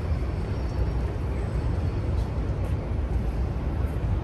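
Outdoor background noise: a steady low rumble with no distinct single event.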